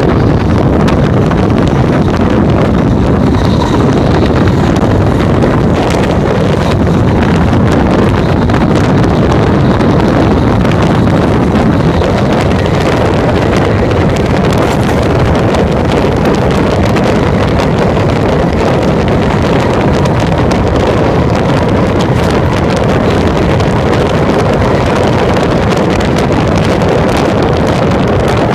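Steady loud rush of wind buffeting a phone microphone held at the open window of a moving V-set electric train, over the train's running noise on the track.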